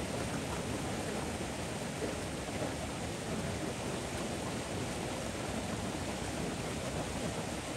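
Steady rushing of a swollen, muddy river in flood, fast water pouring over rocks close by.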